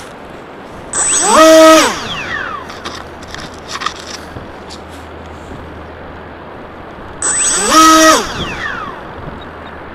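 Flying-wing model plane's electric motor and propeller run up twice in short throttle bursts, each about a second long, the pitch rising quickly, holding, then falling back: a pre-launch throttle check. The first burst comes about a second in and the second near the end, with wind noise on the microphone between them.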